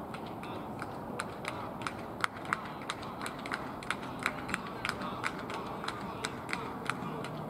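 A regular run of sharp clicks, about three or four a second, over steady outdoor background noise.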